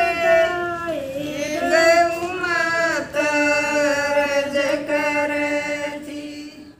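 Women singing a Haryanvi devotional bhajan together in long drawn-out notes, fading out near the end.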